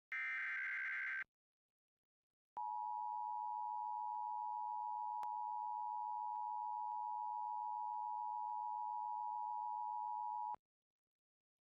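Emergency Alert System signal on FM radio: a buzzy digital data burst of about a second (the SAME header), a short silence, then the steady attention tone held for about eight seconds before cutting off abruptly. It announces that an emergency warning message is about to be read.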